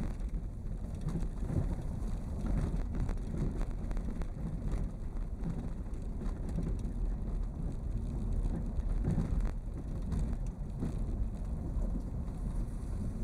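Vehicle travelling along a forest road: a steady low rumble with a crackle like tyres on a rough surface, and wind on the microphone.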